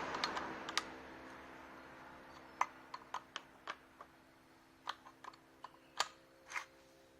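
A rushing noise dies away over the first couple of seconds. It is followed by a dozen or so scattered light clicks and taps, like small parts being handled, over a faint steady hum.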